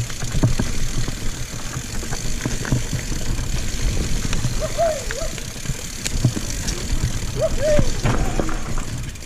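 Mountain bike rolling over rough singletrack: a steady low rumble with many small knocks and rattles from the tyres and bike over the rough ground.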